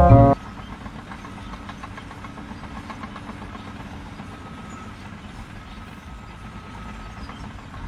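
An engine running steadily at a low rumble, with a fast light ticking through the first few seconds.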